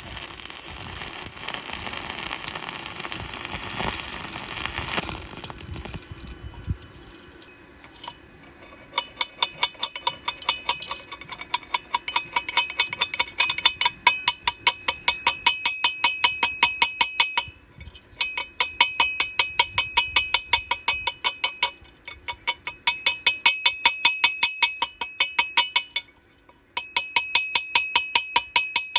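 Stick-welding arc crackling and hissing for about five seconds. After a short lull comes a fast run of ringing metallic taps, several a second, in bursts with short pauses: a chipping hammer knocking slag off the weld on steel pipe.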